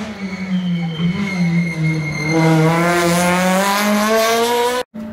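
Rally car engine: the revs fall as the car slows for the corner, then climb steadily and loudly as it accelerates away past. The sound cuts off suddenly just before the end.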